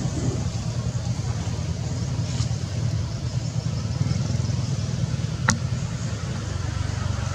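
A steady low engine rumble of nearby motor traffic, with one sharp click about five and a half seconds in.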